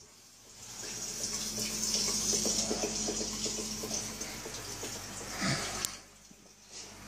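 Aquarium air bubbles rising and breaking at the water's surface: a steady fizzing splash that swells about a second in and fades near the end, with a faint low hum under it.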